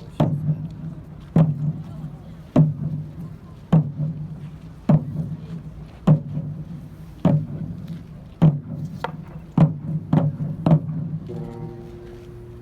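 Large drum struck in slow, single, evenly spaced beats about every 1.2 s; the beats come faster near the end. A held pitched tone starts just after the last beat.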